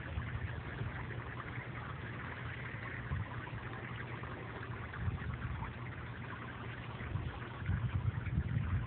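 Water from a garden-hose-fed splash-pad sprinkler mat spraying and splashing onto the mat in a steady hiss, over a low rumble that grows louder near the end.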